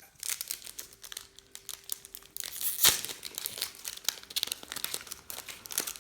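Footy trading cards being handled and flipped through: crinkling, rustling and crisp clicks of card and packet, with one sharper snap about halfway through.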